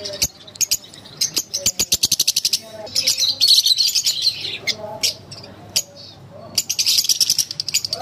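A flock of caged Fischer's lovebirds chirping: rapid runs of short, sharp, high chirps, with a denser burst of chatter in the middle.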